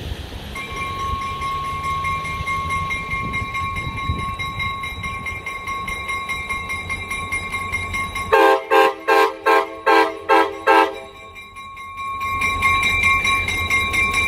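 EMD FL9 diesel-electric locomotive approaching with a bell dinging steadily. About eight seconds in, its air horn sounds a quick run of about six short blasts, and near the end the diesel's rumble grows as it draws close.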